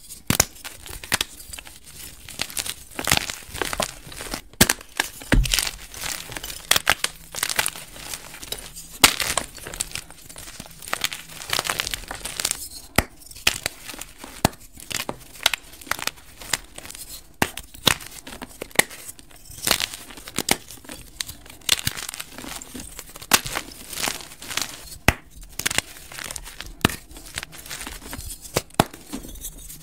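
Dyed gym chalk being broken and crushed by hand: dry, crisp crunching and crumbling, with many sharp cracks at an irregular pace as blocks snap and chunks are squeezed to powder between the fingers.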